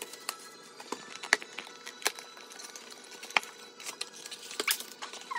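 A cardboard trading-card mega box being handled and torn open, its flaps pulled back: a run of sharp snaps and crackles, with four louder ones spread through the few seconds.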